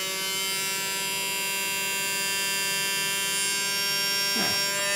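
Bamix Gastro 200 immersion blender motor running on its fast second speed with no load, a steady high-pitched whine.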